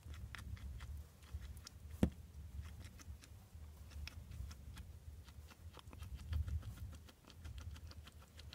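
Hairless guinea pig licking and chewing cherry tomato juice off a hard surface: a run of small wet clicks and smacks, with one sharp knock about two seconds in.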